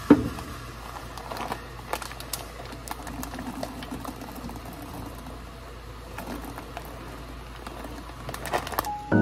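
Chocolate chips poured from a plastic pouch into a mixing bowl: a sharp knock near the start, then many small scattered clicks as the chips fall, with the pouch rustling.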